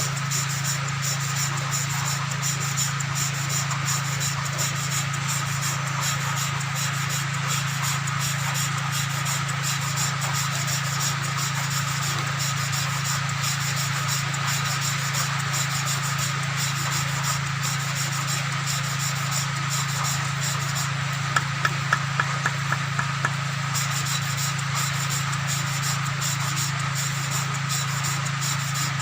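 Engine valve being lapped into its seat by hand with grinding compound: a steady gritty rubbing under a constant low hum, with a quick run of light ticks about two-thirds of the way through.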